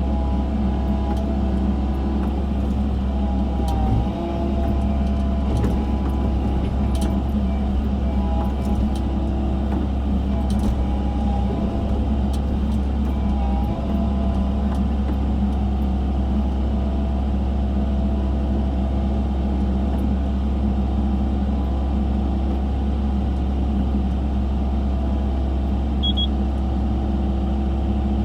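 Excavator's diesel engine running steadily under load while digging. Over the engine sits a hydraulic whine whose pitch wavers and bends during roughly the first fourteen seconds, then holds steady.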